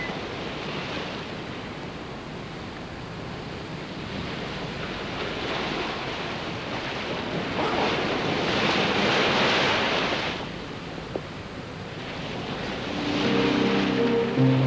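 Steady rushing ambient noise that swells for about two seconds midway. Soft music with held notes comes in near the end.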